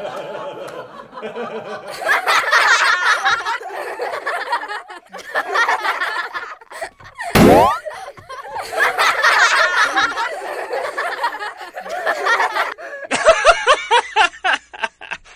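Canned laughter: snickering and laughing in bursts, with a short, sharply rising sound effect about seven seconds in and quicker, choppier giggling near the end.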